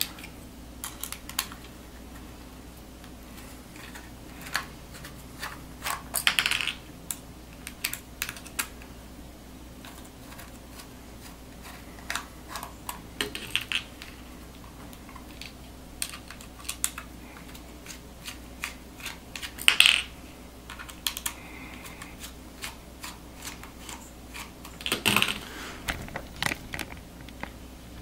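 Scattered light clicks and metallic taps from handling a laptop hard drive in its sheet-metal carrier tray while its four small screws are taken out, with a few louder clatters about six, twenty and twenty-five seconds in.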